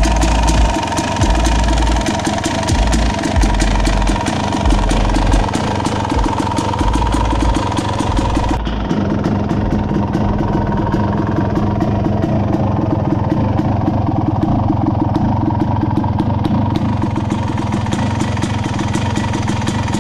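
Yamaha YZ250 two-stroke single-cylinder engine idling steadily, a fast, even patter of firing pulses with no revving. About eight and a half seconds in, the sound turns duller as the high hiss drops away.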